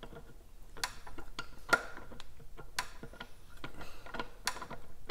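Outboard propeller shaft being worked by hand into the lower-unit gearcase, giving irregular light metal clicks and taps, with a few sharper clicks about a second apart.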